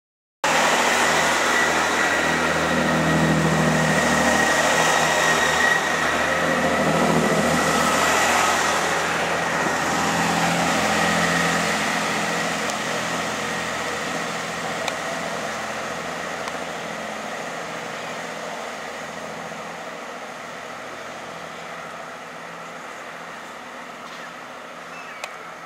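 First Great Western Networker Turbo diesel multiple unit running away down the line, with the engine drone, a steady whine and wheel-on-rail noise. The sound cuts in about half a second in, holds steady, then fades gradually over the second half as the train recedes.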